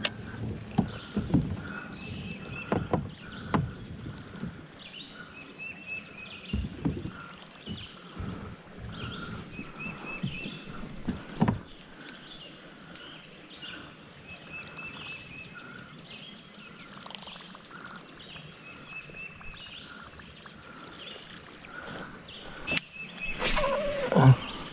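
Kayak on a river being moved back into position: low water and hull noise with a few sharp knocks. Birds call repeatedly in the background, and the noise grows louder near the end.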